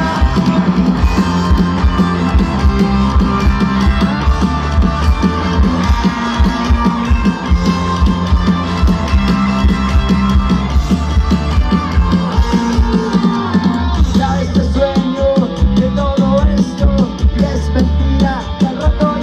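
A live rock band plays through the stage PA, with electric guitars, bass and drums keeping a steady beat. A lead vocal comes in about three-quarters of the way through.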